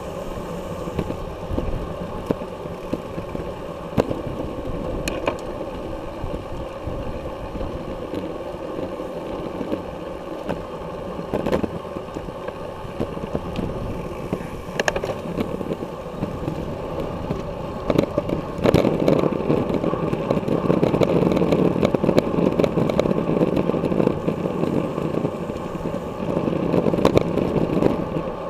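Wind rush and tyre noise from a road bike riding at race speed in a pack, picked up by the bike's action-camera microphone, with scattered light clicks and knocks. The rush grows louder about two-thirds of the way in and eases near the end.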